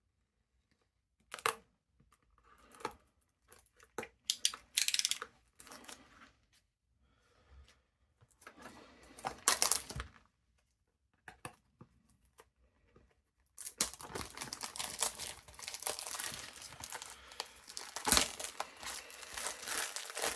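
Plastic shrink-wrap being torn and crinkled off a sealed trading-card booster display box: short scattered rips and rustles at first, then continuous crackling and crumpling from about two-thirds of the way in.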